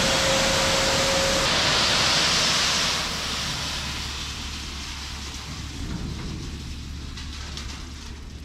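Clean crushed stone (chip rock) sliding out of a tipped dump trailer bed onto the pavement, a steady rushing hiss that dies down to a softer rush about three seconds in as the load empties.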